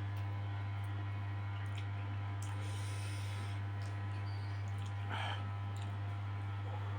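Close-up eating noises: chewing with small wet mouth clicks, and a short sharp breath or sniff about five seconds in, over a steady low hum.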